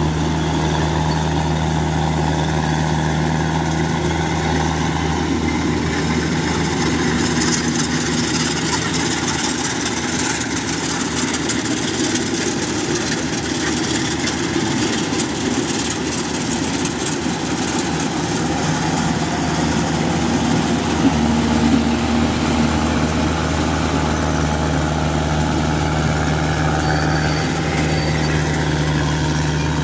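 Kubota DC-105X combine harvester's diesel engine running steadily at working speed while the machine cuts rice. The low engine hum weakens in the middle and comes back strongly near the end.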